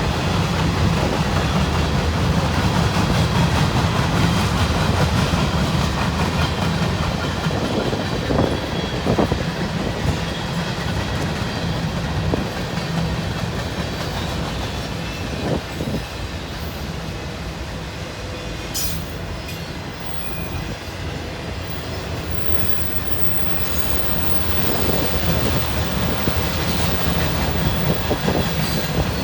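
Freight cars of a CN train rolling past: a steady rumble of steel wheels on rail, with a few sharp clacks over rail joints.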